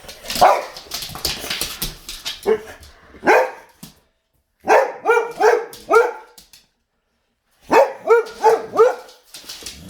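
Boxer dog barking in short runs: a few scattered barks, then a quick run of four and a quick run of five, with brief silences between.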